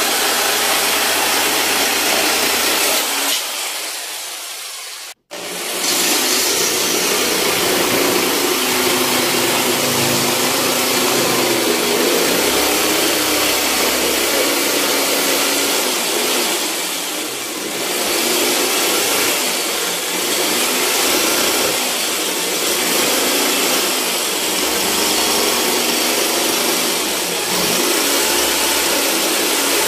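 Bosch GST 700 500 W jigsaw cutting through a wooden panel, a steady buzzing rasp of the reciprocating blade. About three seconds in the sound sinks lower, breaks off for an instant about five seconds in, then the cutting carries on steadily.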